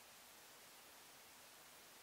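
Near silence: a faint, steady hiss, with no pecking or calls.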